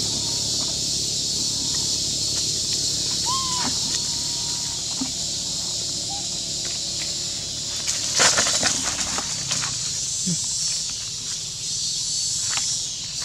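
Steady high-pitched drone of forest insects, with a single short call about three seconds in and a brief run of clicks and rustles about eight seconds in.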